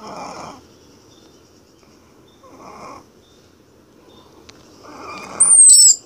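A cocker spaniel's slow, snore-like breathing, three breaths about two and a half seconds apart. Near the end, a loud, very high-pitched squeal falling in pitch, the cry of an orphaned baby squirrel.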